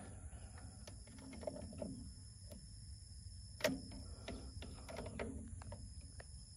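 Faint scattered clicks and taps of multimeter test probes and leads being handled at a metal electrical enclosure, with one sharper click about three and a half seconds in.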